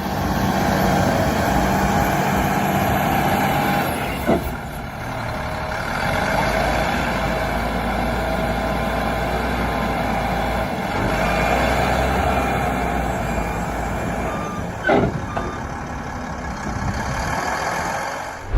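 Heavy machinery working, with engine noise and a low rumble throughout. A reversing alarm beeps, and sharp knocks come about four seconds in and again near the end.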